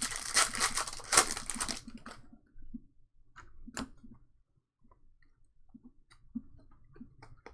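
Trading-card packs and cards being handled: a dense crinkly rustle for about two seconds, then scattered light clicks and taps.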